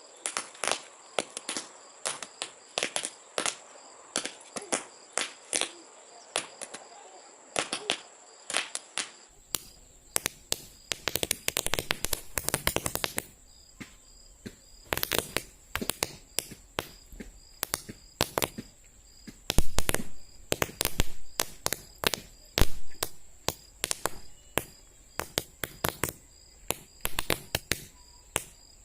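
Paper roll caps (toy-gun caps) going off one after another in sharp, irregular pops, sometimes in quick bursts, sometimes a second or so apart.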